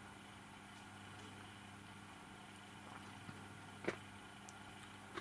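Quiet room tone with a steady low electrical hum, and a single sharp click a little under four seconds in.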